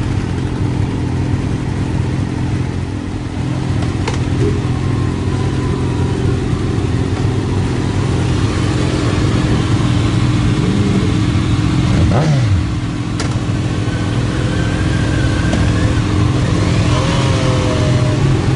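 Motor vehicle running at a steady speed: a steady, loud engine and road drone that holds one pitch. About twelve seconds in, a sound sweeps sharply down in pitch.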